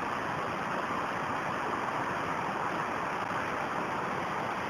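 Steady rushing of a shallow stream running over rocks.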